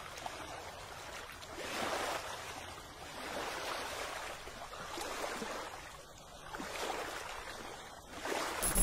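Gentle sea waves washing in soft swells that rise and fall about every one and a half to two seconds.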